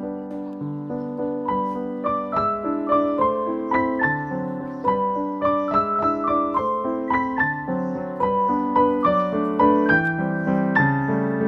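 Background piano music: a melody of struck notes over low chords.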